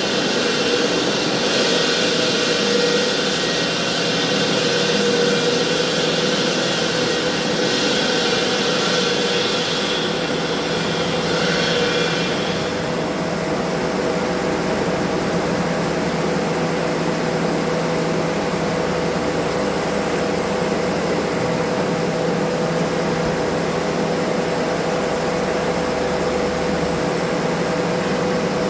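Marble-cutting saw with a diamond blade running with a steady motor whine. For the first twelve seconds or so a harsher hiss of the blade grinding through the stone lies over it, then eases off, leaving the even drone of the machine.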